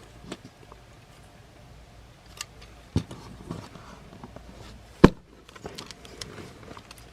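Hard plastic parts of a Transformers Studio Series Ratchet figure clicking and knocking as it is unfolded and transformed by hand: a handful of separate clicks, the loudest about five seconds in.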